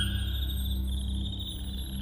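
Produced night-forest ambience: a steady high cricket trill over a low, droning ambient music pad. A short held tone sounds over it near the start.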